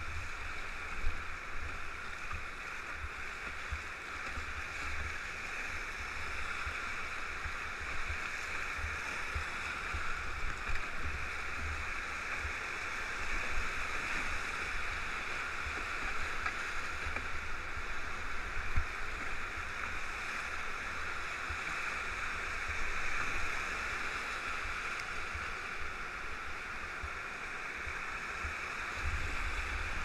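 Whitewater rapids rushing steadily around a canoe running a river at high water, a constant hiss of churning water with irregular low thumps and a few brief louder splashes.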